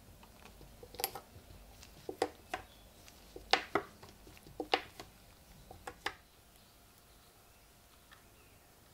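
Old metal coins being picked up and set down on a hard table: a series of light clicks and taps, often in quick pairs, stopping about six seconds in.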